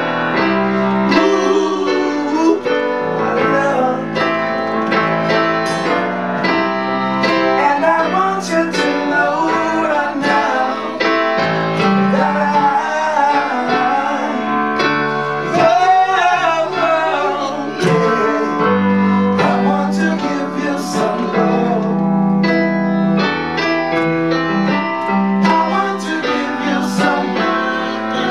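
Live acoustic guitar strummed together with a piano, with voices singing over them.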